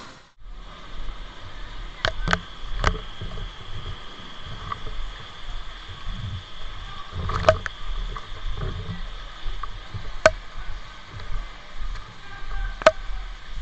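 Rumbling handling noise from a firefighter's body-worn camera as he moves about, with several sharp knocks scattered through and a faint steady high tone for most of the time.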